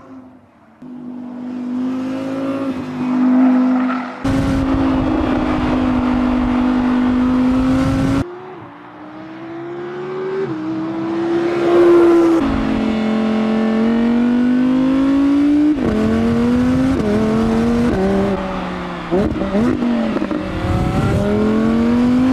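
Audi R8 V10 GT's naturally aspirated 5.2-litre V10 accelerating hard, its note climbing in pitch and dropping abruptly at each gear change. The sound jumps suddenly in level about four and eight seconds in.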